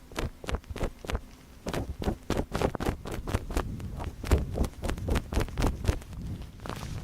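Close-up ASMR ear-cleaning sounds: irregular scratching, rubbing and crackling clicks right at the microphone, growing denser about two seconds in.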